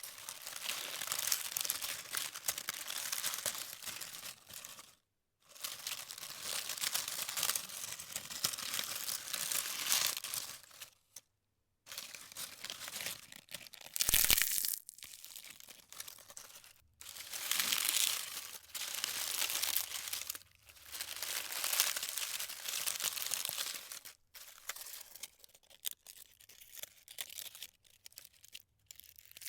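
Dry leaves crunched and crumpled by hand in a bowl: bursts of crisp crackling a few seconds long with brief pauses between, and quieter, sparser crackling near the end.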